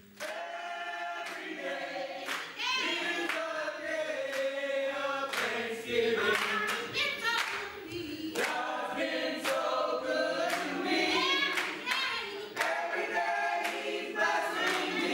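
Church choir singing, with hand claps keeping a steady beat about once a second.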